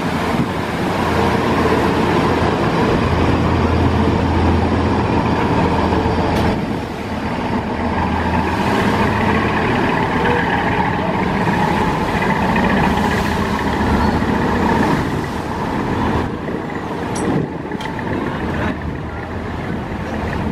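Diesel engines of large passenger river launches running at speed, a steady loud drone with a low hum underneath, mixed with the rush of churning water.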